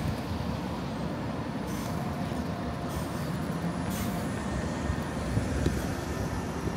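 Steady low rumble of city road traffic, with a few brief hisses about two and four seconds in.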